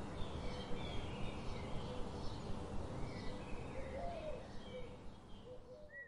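Faint birds chirping, short calls and brief trills, over a steady low background noise, all fading out near the end.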